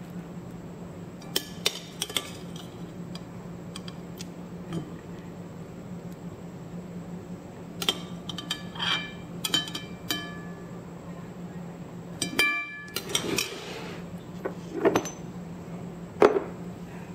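Scattered light clinks and knocks of kitchenware: a metal slotted spoon against a glass bowl and plate, and then small glass bottles set down on a countertop, the loudest knocks coming near the end. A steady low hum runs underneath.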